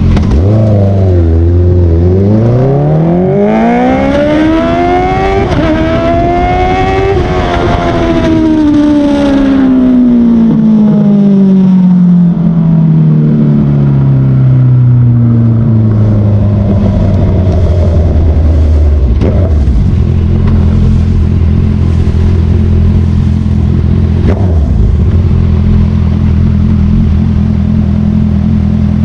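Honda CBR motorcycle engine accelerating, the revs climbing for several seconds with a couple of brief breaks like gear changes, then falling away steadily as the bike slows. In the last third the engine runs at a steady low speed.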